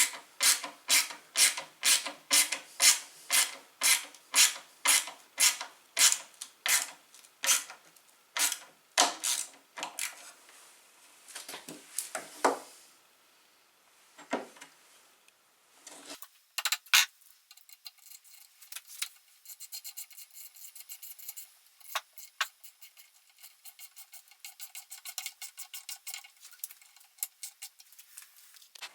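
A hand tool driving bolts into a wooden frame: rhythmic scraping strokes about two a second, then a few scattered strokes. After a pause, fainter, fast ticking carries on to the end.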